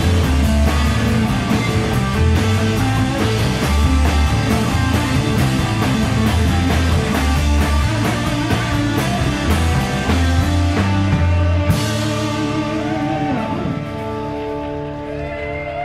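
Rock band playing live, with electric guitars, bass and a drum kit with busy cymbals. About twelve seconds in a cymbal crash comes, and the band winds down into held, wavering notes as the song ends.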